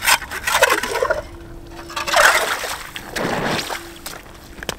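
Hand ice auger breaking through the ice and being drawn out of the hole, with water gushing and gurgling up through the fresh hole in three surges that fall in pitch.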